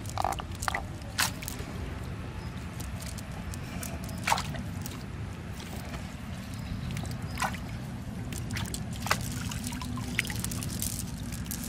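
Water dripping and sloshing as a wet cast net is lifted and worked through by hand in shallow water to pick out fish, with scattered short splashes and drips over a steady low background rumble.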